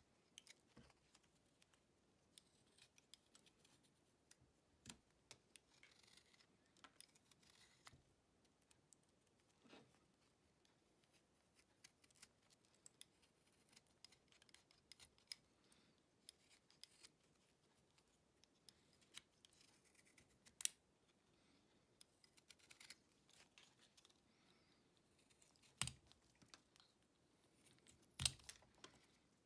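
Box cutter blade shaving a small wooden lure body by hand: quiet, irregular short slicing and scraping strokes as thin curls are pared off. A few louder sharp clicks stand out, one about two-thirds of the way through and two near the end.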